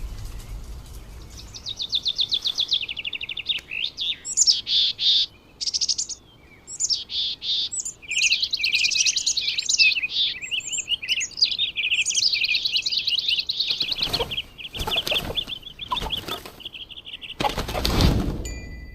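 Small birds chirping in rapid, overlapping high trills, with a few whooshing sweeps near the end, the loudest just before it ends.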